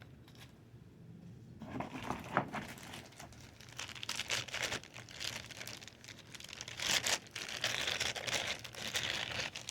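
Packaging crinkling and rustling as items are pulled out of a box. It starts about a second and a half in and grows busier over the last few seconds.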